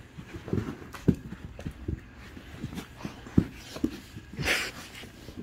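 Great Dane puppy and adult Great Dane playing together on a rug: irregular thumps and scuffles from paws and bodies, with a short breathy huff about four and a half seconds in.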